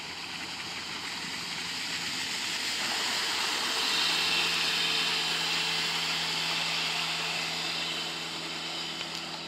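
Motorboat towing a wakeboarder running past, a steady engine hum under the rush of its wake and spray, loudest about halfway through as it passes closest.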